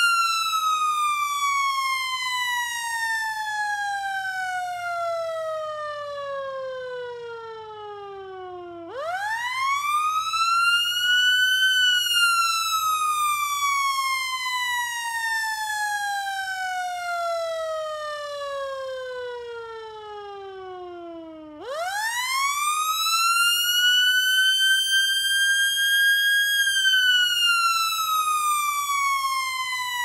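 Warning siren sounding a wail test. Its single tone falls slowly, sweeps quickly back up about nine seconds in, falls again, then sweeps up once more about twenty-two seconds in, holds its top pitch for a few seconds and starts falling.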